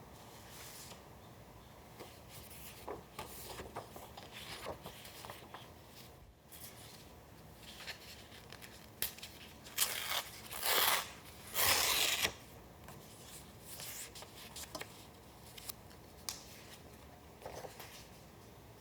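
Paper being handled and rustled in short, soft strokes, then torn in two longer rips a little past the middle, the loudest sounds here.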